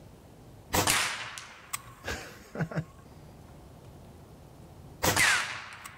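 Two shots from an Evanix Hunting Master AR22 regulated PCP air rifle, about four seconds apart. Each is a sharp, loud crack with a short ringing tail, and a few lighter clicks and knocks fall between them.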